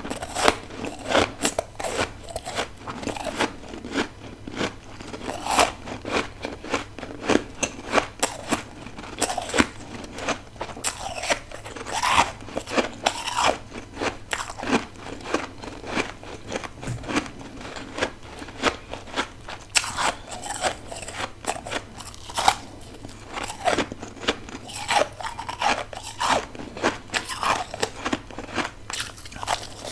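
Close-miked biting and chewing of humidifier-grown deep-freezer frost, a dense run of irregular crisp crunches.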